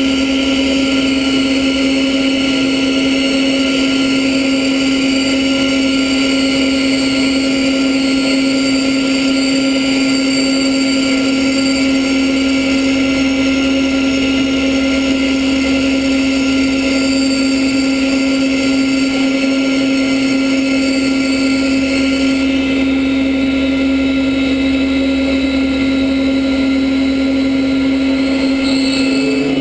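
DeHoff 218 four-spindle gun drilling machine running while gundrilling hollow-stem engine valves: a steady, unbroken machine drone with one strong constant tone over a hiss. Part of the high hiss drops away about 22 seconds in.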